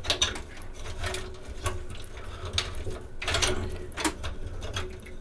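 Ethernet patch cables being unplugged from a network switch and handled: irregular clicks of the cable plugs and their latches, with cables rattling and rubbing together, over a faint steady hum.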